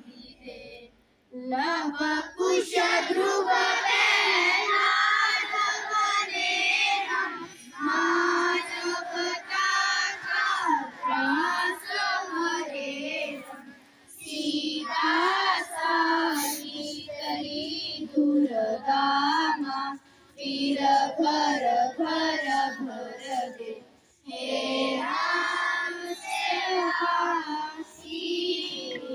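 A group of schoolchildren singing a prayer together in unison, in long phrases broken by short pauses every few seconds.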